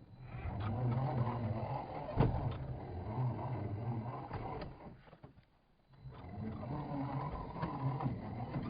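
Scale RC crawler's electric motor and geared drivetrain running under throttle as it crawls, with a sharp knock about two seconds in; the drive stops for about a second around five seconds in, then starts again.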